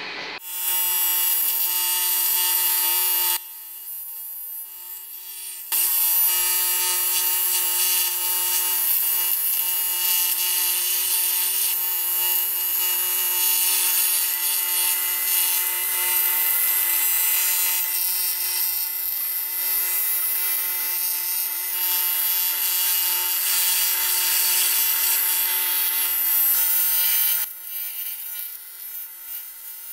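TIG welding arc on a Daewoo Lanos 1.5 aluminium cylinder head, welding up heat cracks in a combustion chamber: a steady buzzing hiss. It breaks off for about two seconds a few seconds in, then runs on and stops near the end.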